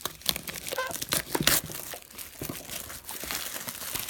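Packaging of a sealed trading-card box being opened by hand: irregular crinkling, rustling and tearing.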